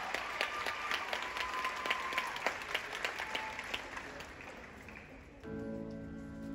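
Audience applause with a held cheer, thinning and fading away. About five seconds in, the guard's show music starts with sustained, layered chord tones.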